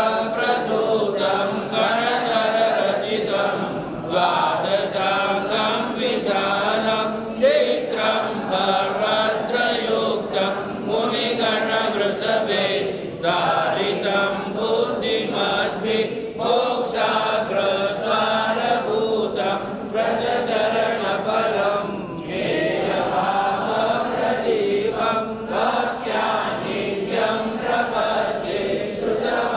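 Devotional mantra chanting: voices singing a continuous, steady chant.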